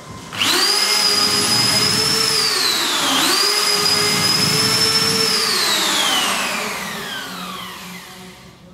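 Corded electric drill boring holes in a painted wall panel: the motor spins up sharply to a high whine, dips in pitch about three seconds in and picks back up, then winds down in a long falling whine as the trigger is let go.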